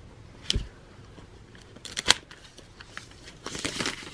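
Unboxing packaging being handled: a soft thump about half a second in and a sharp click near two seconds, then rustling and crinkling of the wrap as the keyboard folio is lifted out of its white box.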